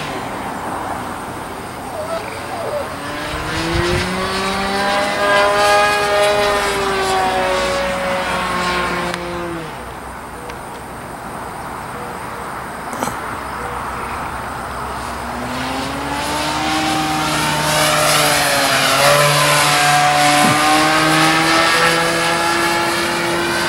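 Bigstick 60 radio-controlled model airplane flying overhead, its motor and propeller running steadily. The pitch rises and falls as it goes by, twice.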